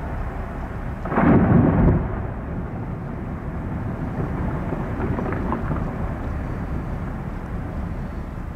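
Ice calving from the Meares Glacier's tidewater face: a loud, rumbling boom about a second in, lasting about a second, over a steady low background rumble.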